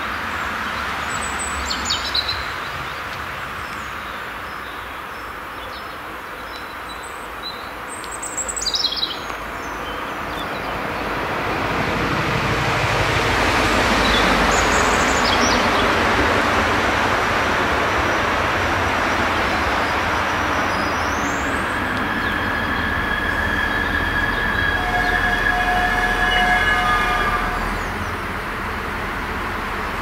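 A red regional diesel multiple unit approaches and brakes to a stop at the halt: its running noise swells from about eleven seconds in, then the brakes squeal in several steady high tones for the last few seconds before the train halts near the end. Two short high chirps sound about two and nine seconds in.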